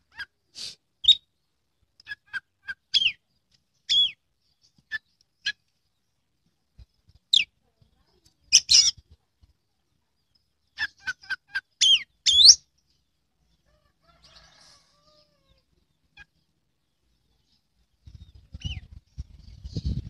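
Oriental magpie-robin singing in short separate phrases of whistles and chirps, with pauses between them and a denser run of notes a little past the middle. A low rumbling noise comes in near the end.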